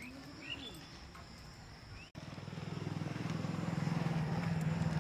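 A few short rising bird chirps, then, about two seconds in, a motor vehicle engine comes in with a steady low hum and grows louder over the next couple of seconds.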